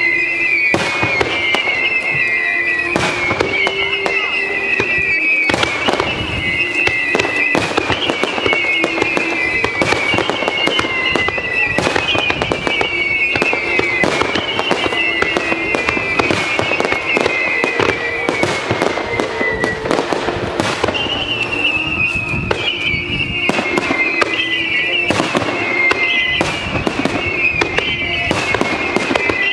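Starmine fireworks display: rapid, continuous salvos of shells bursting and crackling, with music playing along.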